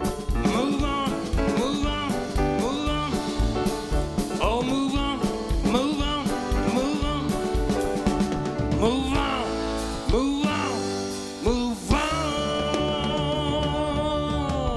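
A live band plays a song: a man sings over acoustic guitar, electric keyboard, drum kit and upright double bass. Near the end the singer holds one long note with vibrato.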